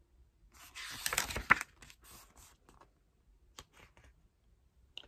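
A page of a glossy album photobook being turned: one rustle of stiff paper about a second in, followed by a few faint light taps of handling.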